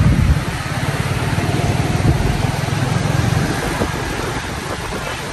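Vehicle engines running on a road, a low rumble over a steady rushing haze.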